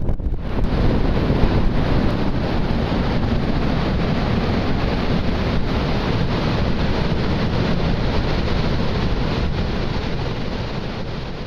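Steady roar of Niagara Falls' water crashing into the gorge, mixed with wind on the microphone.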